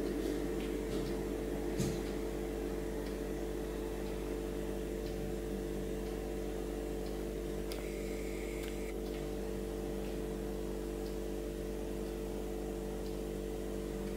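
Steady machine hum made of several fixed tones, with a single sharp click about two seconds in and a short hiss about eight seconds in.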